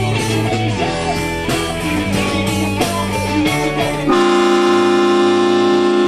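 A live band plays guitar-driven rock music. About four seconds in, a loud, steady train horn blast cuts in over it on one held chord.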